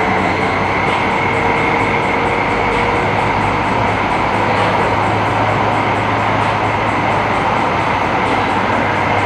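Light rail train running through a subway tunnel, heard from inside the car: a steady rumble of wheels on rail with a steady motor whine over it.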